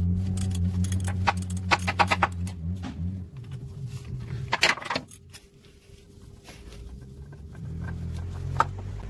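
Metal tools clinking on a spin-on oil filter as it is loosened with a filter socket and ratchet: runs of quick clicks over the first few seconds, a short cluster about halfway through and one sharp clink near the end.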